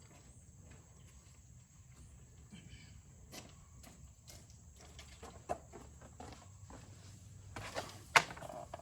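Scattered light clicks and knocks, with one sharp, louder knock about eight seconds in.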